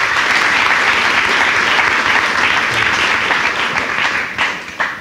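Audience applauding, thinning out near the end into a few last separate claps.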